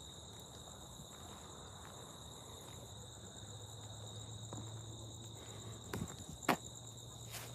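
Steady high-pitched chorus of night insects, holding two even tones, with a few sharp clicks near the end.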